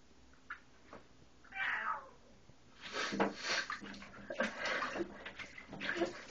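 Pet rats splashing and scrabbling in shallow water in a bathtub, in a quick irregular run of splashes from about three seconds in. A short falling sound comes about a second and a half in.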